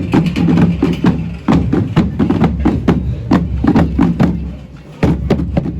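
Background music with a steady percussive beat of sharp, knocking hits over a sustained low bass line. It drops away briefly near the end, then comes back in.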